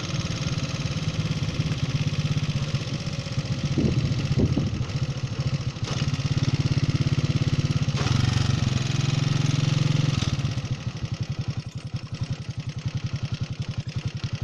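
A vehicle's engine and tyre noise while driving along a paved road. After about ten seconds it gets quieter and the engine settles into a lower, pulsing note as the vehicle slows down.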